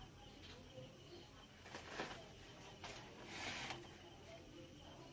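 Faint workbench handling noise: three short hissy scrapes, the last about half a second long, over a low background hum.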